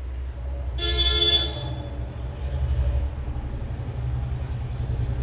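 A short horn toot about a second in, over a steady low rumble.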